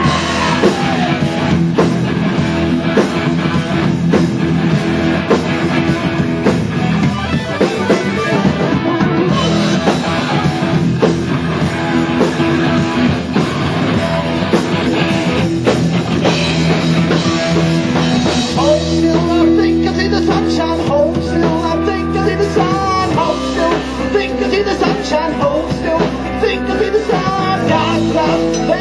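Live metal-funk band playing loudly: electric guitar, bass and drum kit with cymbals. The sound thins out about two-thirds of the way in.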